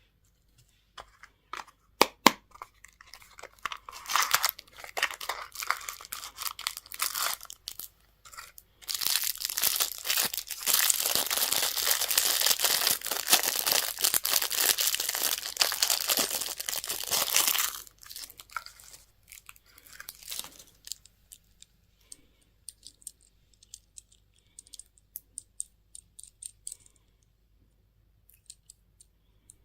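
A candy wrapper being torn open and crinkled by hand. There are scattered light clicks, then two spells of dense crackling: a shorter one after about four seconds and a longer, louder one from about nine to eighteen seconds. Sparse small clicks and rustles follow.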